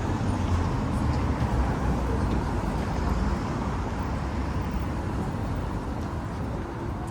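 City street ambience dominated by a low, steady rumble of motor traffic, a little louder in the first few seconds and easing off toward the end.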